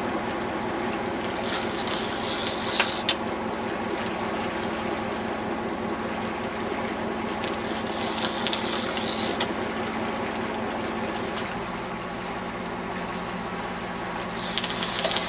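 Boat engine running steadily under way, with water washing and splashing along the hull in a few brief spells.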